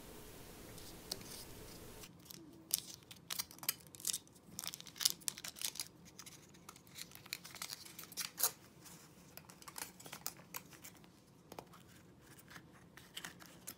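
Thin foil wrapper of a Kinder Surprise chocolate figure being unwrapped by hand, crinkling and tearing in a quick, irregular string of small crackles that starts about two seconds in. Near the end the hollow chocolate is broken open and its plastic toy capsule is handled.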